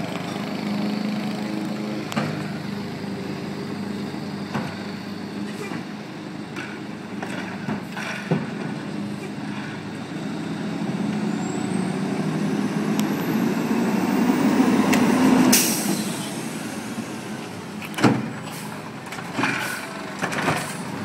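Natural-gas Freightliner Condor garbage truck with a McNeilus automated side-loader arm: its engine runs steadily and climbs in pitch as the truck pulls forward, then a loud air-brake hiss as it stops. Several sharp clanks follow near the end as the arm's grabber closes on the next trash cart.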